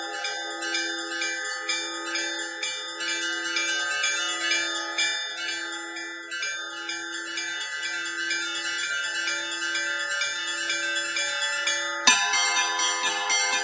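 Russian Orthodox church bells rung by hand (zvon): small high bells struck in quick patterns over a lower bell ringing in a steady rhythm. Near the end the ringing changes abruptly with a loud strike.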